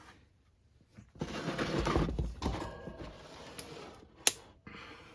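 Frigid 12-inch table fan being handled and turned over on a surface: a couple of seconds of rubbing and scraping, then one sharp click about four seconds in.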